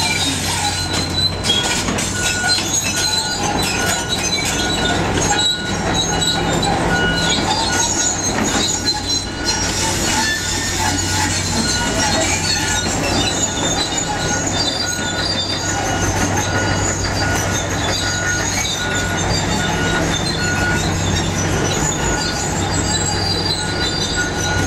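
Demolition machinery at work: a steady diesel engine drone under high metallic squealing and grinding.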